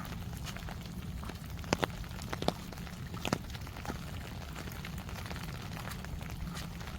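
Steady rain with scattered sharp taps of drops, the loudest few coming about two to three and a half seconds in, over a low steady rumble.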